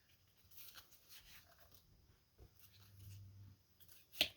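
Faint rustling and soft scraping of cards being handled, with a sharp snap of a card deck near the end.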